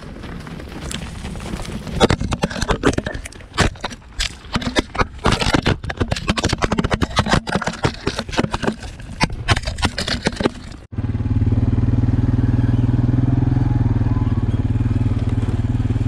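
A flock of sheep tramples past a low camera on dry dirt, making a busy clatter of hooves with sharp knocks where sheep bump the camera. About 11 s in this cuts off and an engine runs steadily at an even speed, louder than the trampling.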